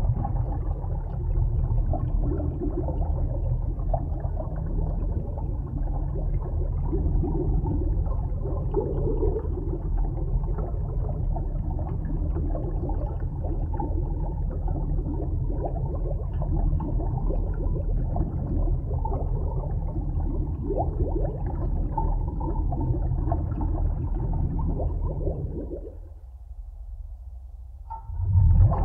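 Underwater sound picked up by a camera below the surface: a steady, muffled low rumble of water with gurgling. Near the end it drops, then a brief louder gurgle follows.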